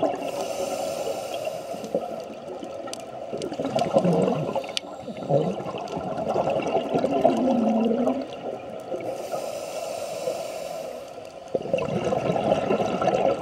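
Scuba regulator breathing heard through the camera's underwater housing: a hissing inhale near the start and again about two-thirds through, with long bubbling, gurgling exhales between them and near the end.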